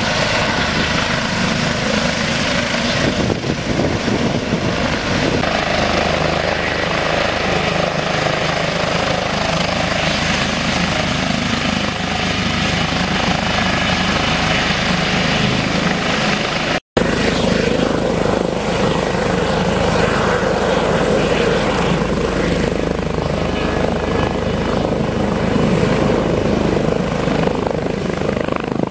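Airbus twin-engine helicopters hovering low and close: steady rotor and turbine noise. The sound drops out for an instant about seventeen seconds in, then the same kind of noise resumes.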